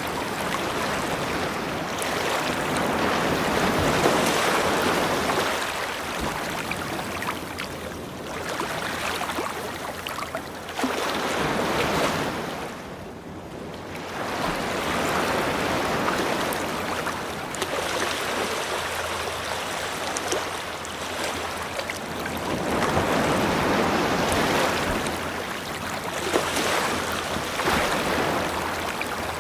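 Ocean surf washing onto a shore: a steady rush of water that swells and ebbs every few seconds, with a brief lull near the middle.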